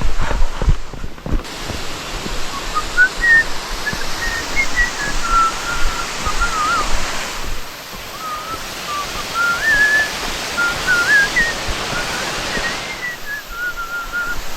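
Someone whistling a wandering tune over the steady, loud rush of a waterfall, with a few low thumps in the first second or so.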